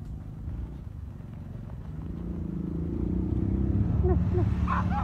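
Low rumble of a motor vehicle passing, building up to its loudest about four seconds in and then easing. A few short, high, bending calls come in near the end.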